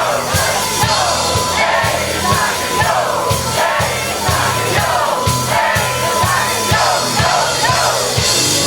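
Rap backing track with a steady thumping beat about twice a second, with a crowd of voices chanting and shouting along.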